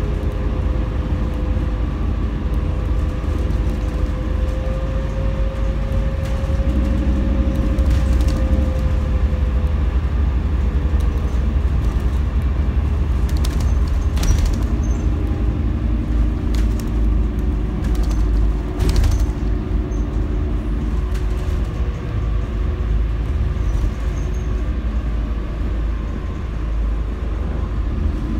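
Scania N250UD double-decker bus under way, heard from the top deck: a steady low rumble of the diesel engine and road noise, with a steady whine that fades out about a third of the way in. A few sharp knocks and rattles come from the bodywork over bumps, the loudest about two-thirds of the way in.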